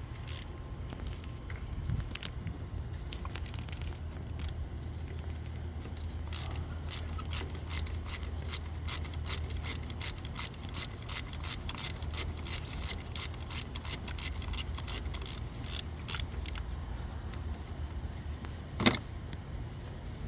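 Ratchet wrench clicking in quick runs of sharp ticks as a spark plug is worked loose with a spark plug socket, with a single louder knock near the end and a steady low hum underneath.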